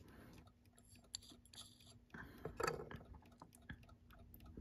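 Faint, irregular small clicks and taps of a steel clock oiler and fingers working on a brass alarm-clock movement while its pivots are oiled, with a brief louder rustle about two seconds in.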